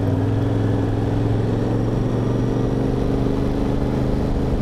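Yamaha Ténéré 700's parallel-twin motorcycle engine running at a steady, even pitch while the bike rolls along gently at low speed.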